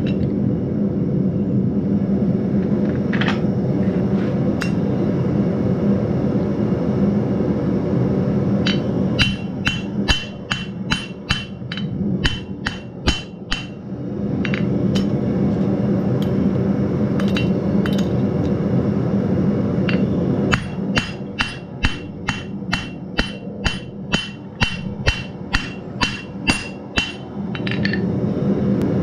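Hand hammer striking a hot metal cross on an anvil: a few single blows, then two runs of evenly paced blows at about two to three a second, each with a bright ringing note from the anvil. Under it runs a steady low drone.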